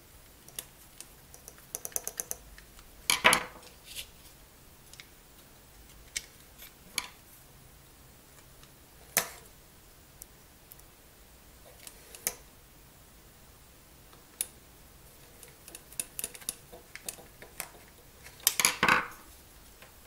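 Hard plastic clicks and taps as an opened Coleco controller's circuit board and plastic shell are handled and pressed together, with a small screwdriver working on them. The clicks are scattered, with a quick run of them about two seconds in and a few louder knocks spread through.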